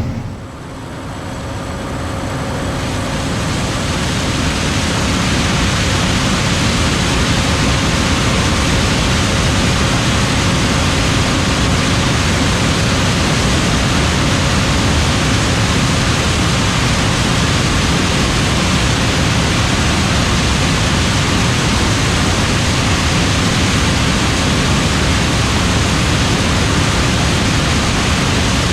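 John Deere S7 800 combine harvesting corn: a steady, dense rushing of the engine and threshing machinery. It fades in over the first few seconds, then holds level.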